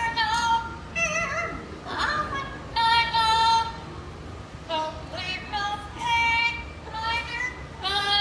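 Amazon parrot singing a song in a mimicked human voice: high-pitched held notes in short phrases with brief pauses between them.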